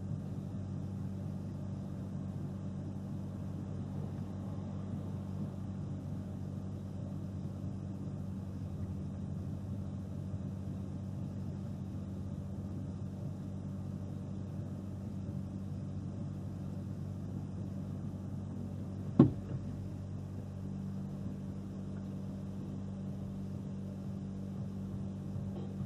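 Steady low hum of a car engine idling, heard from inside the cabin. A single sharp knock cuts in about three quarters of the way through.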